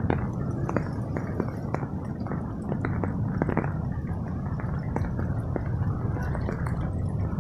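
Storm-surge seawater washing and churning in foamy sheets over the shore: a steady rush with many small gurgles and crackles throughout.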